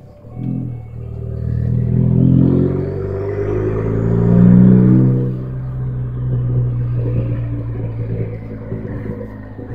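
Straight-piped exhaust of a 2014 Ford Focus ST's 2.0-litre turbocharged four-cylinder, accelerating, heard from inside the cabin. The engine note swells twice, about two seconds in and again near five seconds, then holds steady and eases off near the end.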